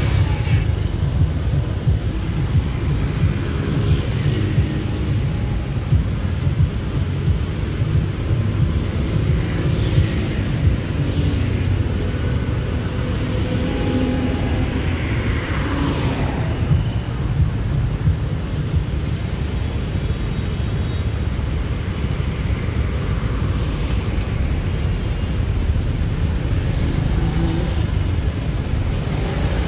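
Wind buffeting the microphone over the running of a small 70cc single-cylinder motorcycle engine at road speed. A brief falling tone sounds about halfway through.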